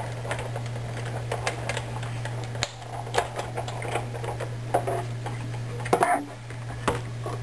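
Sizzix Big Shot die-cutting and embossing machine being hand-cranked, its rollers pressing a cutting-plate and embossing-folder sandwich through with a run of light clicks and ticks. A few louder clicks come near the end as the plates come out, over a steady low hum.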